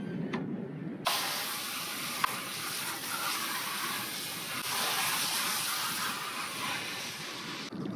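Water hissing from a hose spray nozzle, rinsing a fillet knife over a plastic cutting tray. The spray comes on abruptly about a second in, runs steadily, and shuts off near the end.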